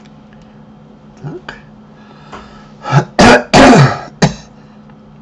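A person clearing their throat and coughing, a cluster of about four loud, harsh bursts about three seconds in, close to the microphone.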